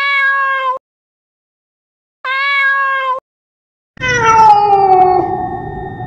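Domestic cat meowing three times: two level meows of about a second each, then a longer one of about two seconds that falls in pitch. The calls are cut cleanly, with dead silence between them.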